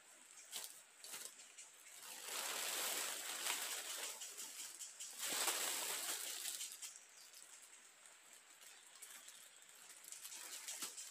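Thin clear plastic sheeting rustling and crinkling as it is unfolded and handled. The rustling comes in two long stretches in the first half, with a few scattered crackles and clicks before and after.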